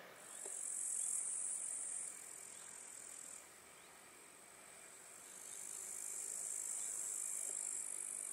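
Insects chirring in the grass: a steady high-pitched buzz that fades back for a couple of seconds in the middle and then swells again.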